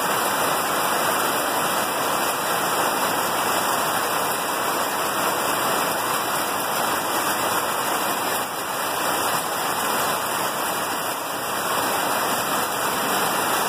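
Heavy rain pouring down steadily, a dense, even hiss with no letup.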